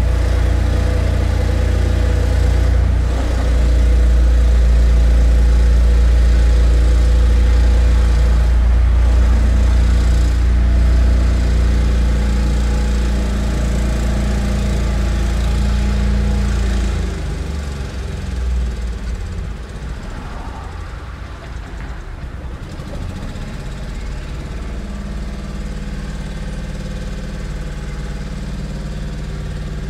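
Construction machinery engine running with a steady low drone. About two-thirds of the way through it drops off and runs on quieter and rougher.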